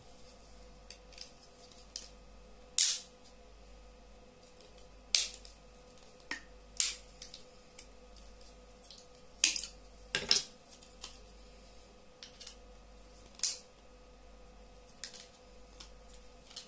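Pliers clicking and snapping against a plastic ear-defender cup: irregular sharp snaps, about half a dozen loud ones among fainter clicks.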